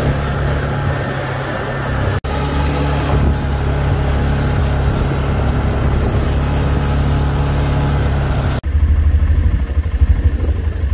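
All-terrain vehicle (four-wheeler) engine running steadily under way on a dirt road. The sound cuts out for an instant about two seconds in and switches abruptly near the end to a rougher, pulsing low rumble.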